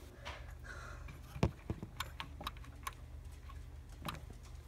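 A few light clicks and taps, with one sharper knock about one and a half seconds in, over a low steady hum: things being handled and pushed inside a refrigerator.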